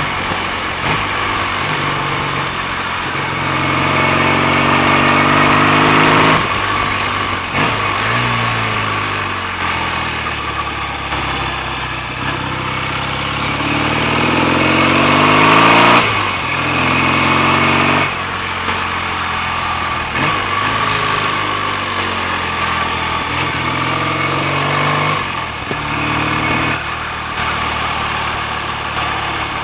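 BSA A65 650 cc parallel-twin motorcycle engine under way on a test ride, pulling up through the revs twice in long rising runs, each ending in a sudden drop at a gear change, about six and sixteen seconds in. There are shorter rises and drops later. The ride follows tightened clutch springs, meant to stop clutch slip.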